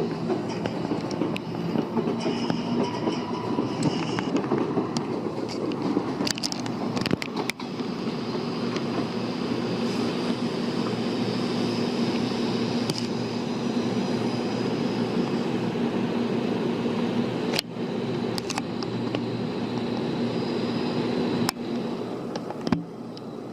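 JR Kyushu 415 series electric multiple unit pulling out and running, a steady train noise with a held motor tone. Sharp clicks come every few seconds, likely wheels over rail joints. Near the end the sound drops away.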